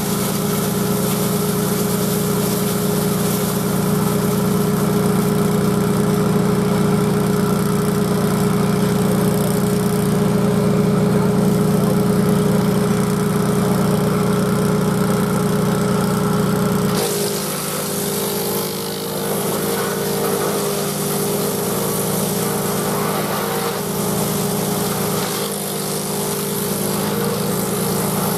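Grillo G131 walk-behind tractor's 18 hp Vanguard V-twin engine running at steady speed, driving a Caravaggi BIO 150 chipper shredder. About two thirds of the way through, the deep hum drops and a higher rushing sound takes over.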